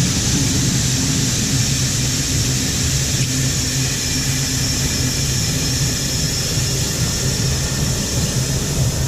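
Farm machine engine running steadily under load with a steady high hiss over it while a load of wet corn is dumped.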